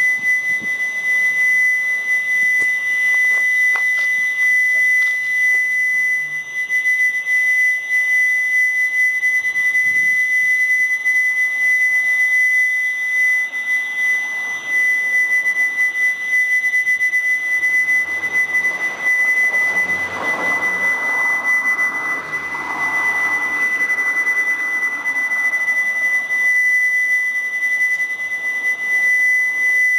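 A loud, steady, high-pitched whine holding one pitch throughout, with a fainter, higher tone above it. This is the unexplained ambient 'hum' that residents could not trace to any source. About two-thirds of the way in, a soft rushing noise swells and fades beneath it.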